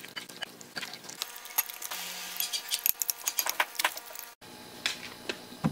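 Two wooden spoons stirring a creamy salad in a glass bowl, with many irregular clicks and taps of wood against the glass.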